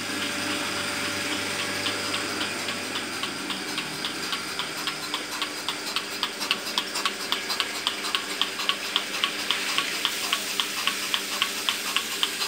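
Milking machine running: a steady hum from its vacuum pump under a fast, even ticking from the pulsator, the ticks becoming sharper about halfway through.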